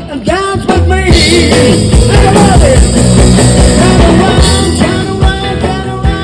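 Rock music with a singing voice over guitar, bass and drums, gradually getting quieter near the end.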